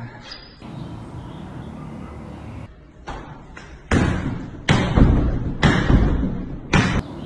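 Knee and leg strikes landing on a free-standing rubber torso training dummy: about five heavy thuds in quick succession, starting about four seconds in.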